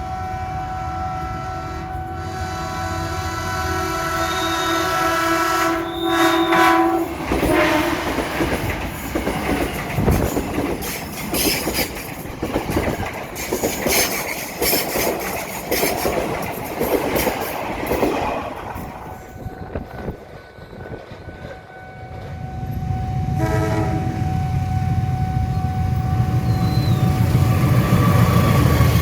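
A train horn sounds a long, held chord that stops about seven seconds in. A train then passes with rapid, irregular clatter of wheels over the rails. Near the end a low train rumble builds again, with a short horn note.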